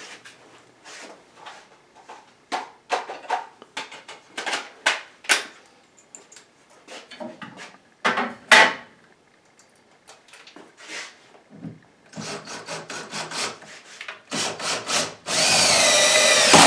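Scattered knocks and clatter of tools and a level being handled on wooden cabinet boxes, then near the end a cordless drill runs loudly, driving a screw through the cabinet's back rail into a wall stud, its whine rising and dipping as the screw goes in.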